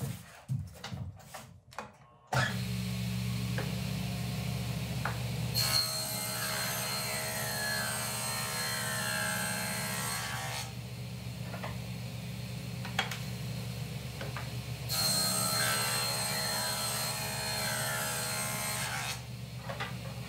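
A few light knocks, then a table saw switches on about two seconds in and runs steadily. It cuts through wood twice, each pass lasting about four to five seconds, cutting rabbets into boards.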